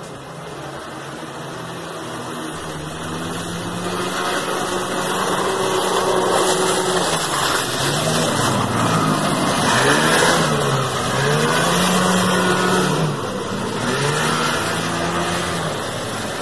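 Vintage Ski-Doo Elite twin-track snowmobile with a Ski-Doo Formula 700 two-stroke engine driving by, the engine revving up and easing off several times as the throttle is worked. It grows louder over the first half and drops back a little near the end.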